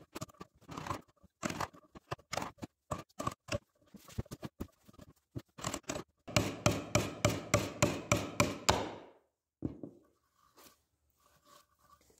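Wood chisel cutting a notch in a softwood beam: short, irregular paring and scraping strokes, then, about halfway through, a run of loud, evenly spaced strikes, about four a second, as the chisel is driven into the wood. One last knock follows, then only faint ticks.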